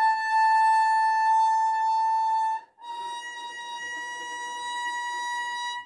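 Violin playing two long bowed notes on its E string: an A held for about two and a half seconds, then, after a brief break, the B a step higher, held to the end and played more softly.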